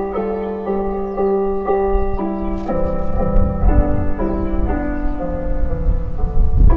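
Japanese municipal disaster-prevention radio chime: a slow keyboard-like melody of held notes with chords, played through outdoor public-address loudspeakers, with a low rumble underneath.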